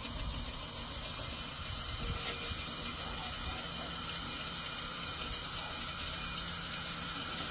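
Old K-Mart box fan running with a rusty bicycle rim fitted in place of its blades: a steady whir of the motor and the spinning rim, with a faint hum coming in about halfway through.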